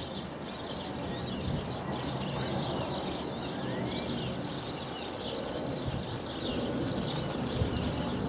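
Many small birds chirping continuously in a dense chorus of short, quick calls, over a steady low rumbling noise.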